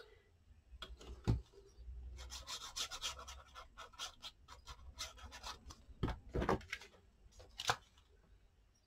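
Paper and card being handled and rubbed against a desktop: a run of quick scratchy rubbing strokes with a few sharper knocks.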